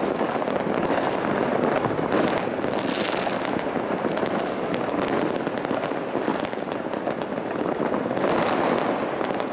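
Many fireworks going off at once in a continuous barrage of overlapping bangs and pops. A brighter crackle swells about two seconds in and again near the end.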